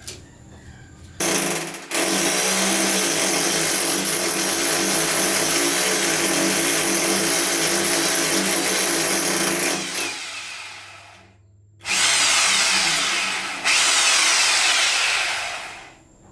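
A handheld power tool, drill-like, running flat out in two long runs: about eight seconds, winding down, then about four more seconds after a short break.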